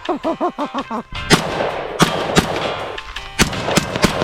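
About six gunshots in quick, uneven succession starting about a second in, over background music.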